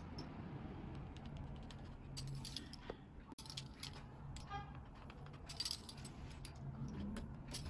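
A pizza cutter rolling through soft dough on a wooden tabletop, with light metallic clicks and a brief rattle from the wheel on its axle. A low steady hum lies beneath.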